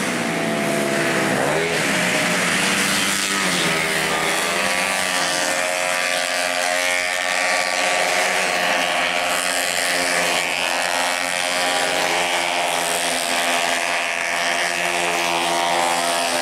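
Engines of several race-tuned automatic scooters running at high revs, rising and falling in pitch as they accelerate and pass, one over another.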